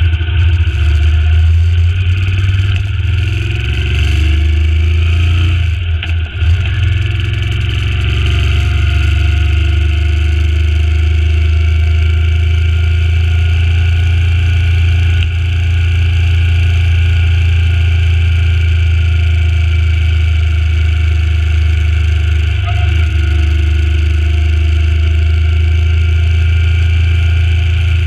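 Suzuki Intruder C800's V-twin engine running steadily as the motorcycle rides along, with a brief dip in loudness about six seconds in.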